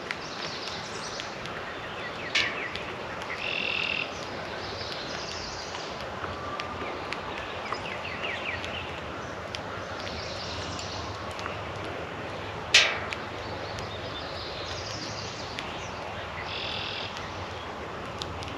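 Backyard songbirds singing and calling, with short phrases coming every second or two. Two sharp knocks stand out, one about two seconds in and one about halfway through.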